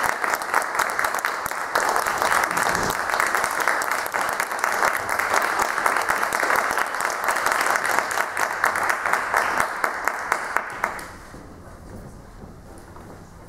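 Audience applauding, a dense patter of many hands clapping that dies away about eleven seconds in.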